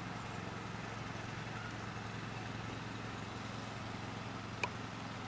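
A steady low hum under a faint even hiss, with one short sharp click about four and a half seconds in.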